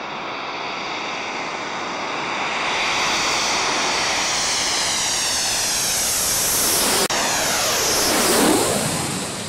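Panavia Tornado's twin RB199 turbofans coming in to land, growing steadily louder. The jet passes closest about eight and a half seconds in with a sweeping fall in pitch, then fades. The sound cuts out for an instant just after seven seconds.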